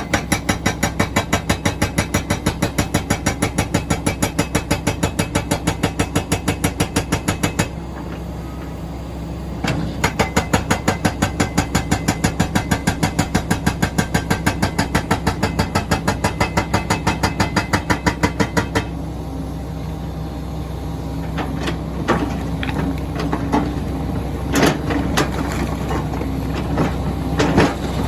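Hydraulic breaker on a Komatsu PC400LC excavator hammering stone in rapid, even blows, about five or six a second, over the steady run of the diesel engine. It hammers in two long runs with a short pause between them. Near the end the hammering stops, leaving the engine running with irregular knocks and clatter.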